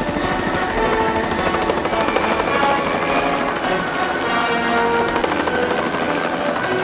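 Helicopter in flight: steady rotor chop and engine noise, with music playing over it.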